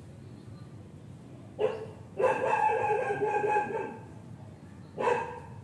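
An animal calling three times: a short cry, then a long drawn-out cry of nearly two seconds, then another short cry near the end.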